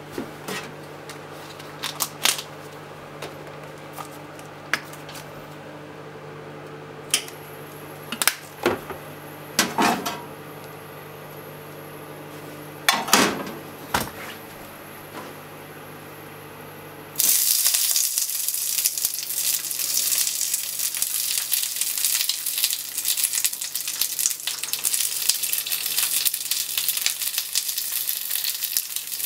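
Clicks and knocks of a frying pan being handled on a gas stove over a steady low hum, then, a little past halfway, a sudden loud sizzle of hot oil as cabbage rolls go into the frying pan, sizzling evenly from then on.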